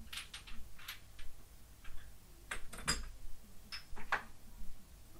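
Glass perfume bottles clinking and knocking as they are handled: irregular light clicks, a few with a short ring, the loudest about three seconds in.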